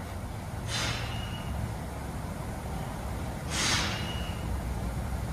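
Two short hisses of air, about three seconds apart, each with a faint whistle trailing off, over a steady low rumble.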